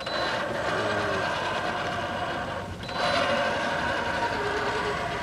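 Electric motor and gearbox of a radio-controlled crawler truck running with a steady whine; the whine drops out briefly and comes back louder about three seconds in.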